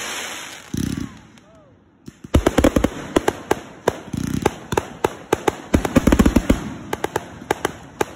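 Consumer firework cake firing: a crackling burst at the start, a short lull, then from about two seconds in a dense, rapid run of shots and pops that thins out toward the end.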